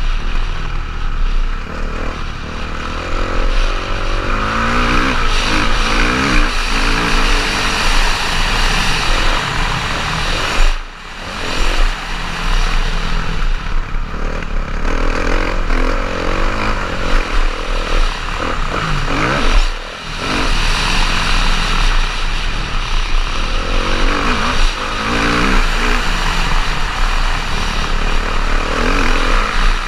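Kawasaki motocross bike's engine revving up and down repeatedly as it is ridden hard around the track, heard onboard with steady wind rush on the microphone. The engine note drops away briefly twice, about eleven and twenty seconds in, then picks up again.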